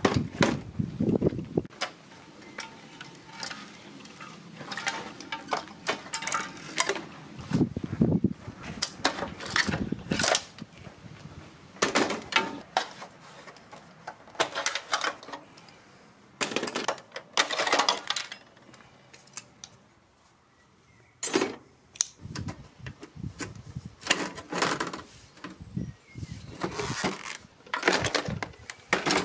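Old CRT televisions being taken apart by hand: irregular clicks, knocks and rattles of plastic casing, metal chassis parts and circuit boards being pulled, pried and handled with a screwdriver, with a short lull about two-thirds of the way through.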